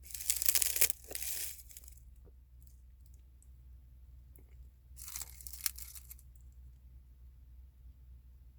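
Close-up crunching from eating crunchy food, in two bursts: a longer one at the start and a shorter one about five seconds in.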